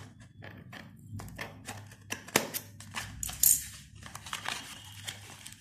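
Tape on a small cardboard box being cut and the cardboard flaps being pulled open: a string of sharp clicks and scrapes. The loudest click comes about two and a half seconds in, followed a second later by a brief rustle of cardboard.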